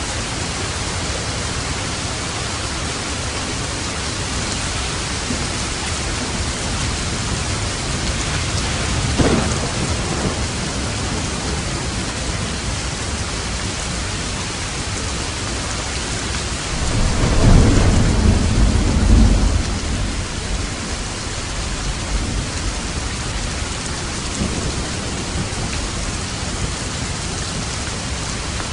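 Steady heavy rain hissing throughout, with a short crack of thunder about a third of the way in and a longer, louder low rumble of thunder a little past the middle.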